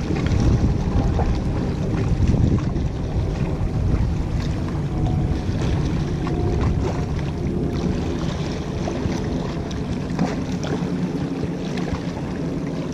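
Wind buffeting the microphone over sea water washing against shoreline rocks, a steady low rush.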